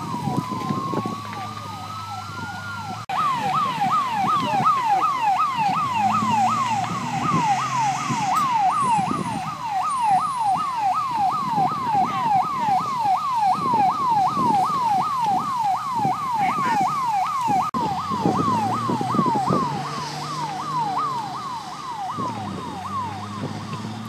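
Fire engine's electronic siren: a slow wail rising in pitch for about three seconds, then a fast yelp of two to three rising sweeps a second, with an engine running underneath.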